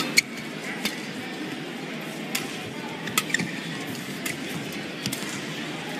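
Badminton rackets striking the shuttlecock during a rally: a string of sharp cracks, one every half second to a second, over a steady background hum of the hall.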